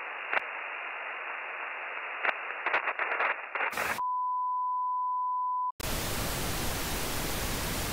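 Muffled tape hiss with scattered clicks and crackles, then about four seconds in a steady test-card tone that holds for under two seconds and cuts off. After a brief gap comes loud analogue TV static hiss.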